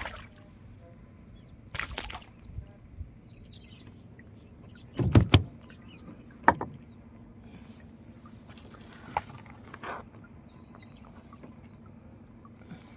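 A few scattered knocks and thumps, the loudest a quick cluster about five seconds in, over a faint steady hum with a few faint high chirps.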